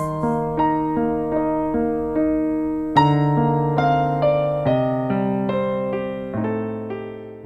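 Piano playing the closing phrase of a slow gospel song: single notes struck about two or three a second over held bass notes. A loud chord comes about three seconds in, then the bass steps down and the playing fades.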